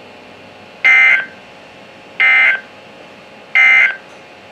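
Three short, loud bursts of Emergency Alert System SAME digital data tones over NOAA Weather Radio, about a second and a half apart: the end-of-message code that closes the warning broadcast.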